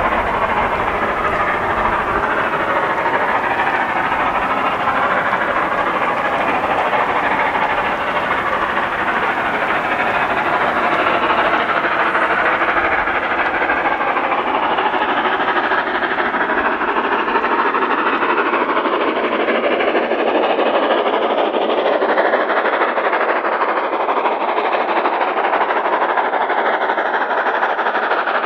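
Ex-LMS Jubilee 4-6-0 steam locomotive 45699 Galatea working flat out up a steep bank with the regulator fully open, its three-cylinder exhaust a loud, continuous chatter as it approaches.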